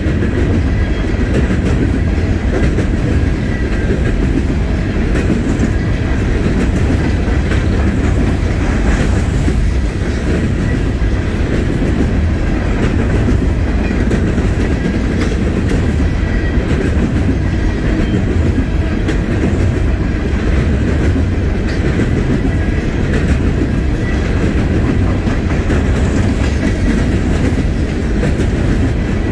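Norfolk Southern coal hopper cars rolling past close by: a loud, steady rumble of steel wheels on rail, with a constant rattle of small wheel clicks.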